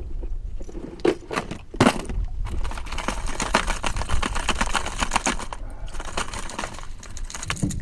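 Hard plastic fishing lures and hooks clicking and clattering as they are sorted through in a tackle box, with a quick, dense run of clicks in the middle.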